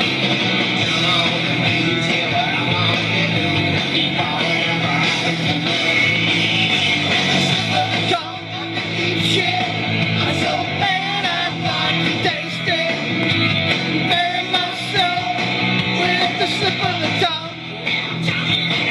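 Rock song with electric guitar and a singing voice, played as background music.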